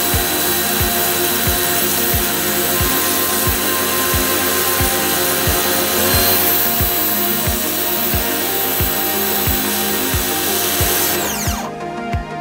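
Daewoo DAXX65-100 electric pressure washer running, its high-pressure jet hissing hard against a tiled floor and wall corner, over background music with a steady beat. The spray noise cuts off near the end with a falling whine as the motor stops, leaving only the music.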